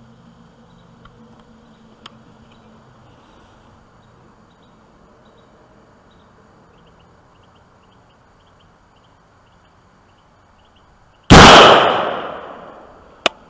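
A single rifle shot from a 16-inch mid-length-gas AR-15, very loud and dying away over about a second and a half, near the end. A short sharp click follows about two seconds later.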